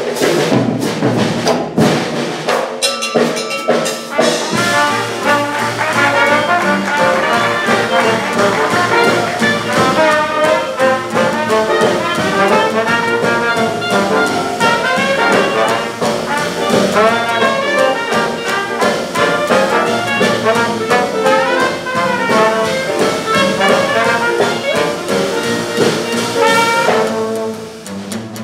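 A traditional New Orleans jazz band plays a swing number live: trumpet, trombone and clarinet over piano, double bass and drums. The first few seconds are sparser, with drum strokes. About four seconds in, the horns come in together and play on, easing off just before the end.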